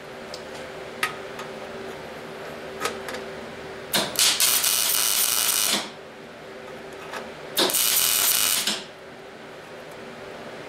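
Wire-feed (MIG) welder laying two short tack welds on steel, a steady sizzling crackle of the arc. The first runs about two seconds from about four seconds in, the second about a second from near eight seconds in, over a faint steady hum.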